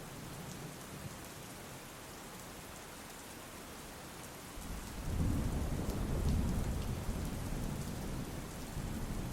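Steady rain falling, with a low rumble of thunder rolling in about halfway through and carrying on.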